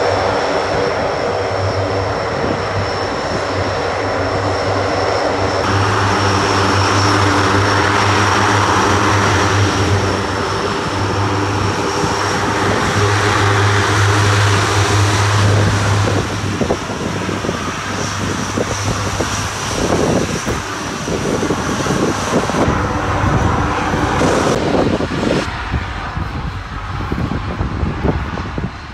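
Four turboprop engines of a USAF HC-130J running as it taxis: a steady low propeller drone under a high, even turbine whine. About halfway through the low drone fades into a rougher, uneven rumble, and the high whine drops out near the end.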